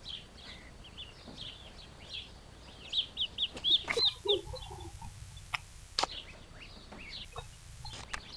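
Birds chirping, with a run of about six loud, quick calls about three seconds in, a short lower cry right after, and a couple of sharp clicks.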